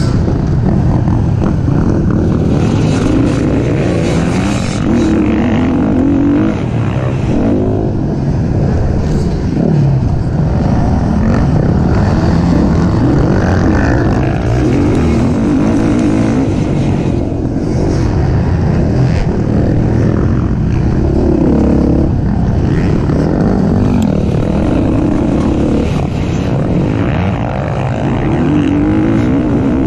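Race car engine running hard and continuously, its revs rising and falling over and over as it accelerates, shifts and lifts through the corners.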